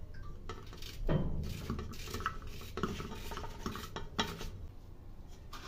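A red onion being cut by hand with a knife over an aluminium cooking pot: a series of irregular short cuts and clinks, with pieces falling into the pot.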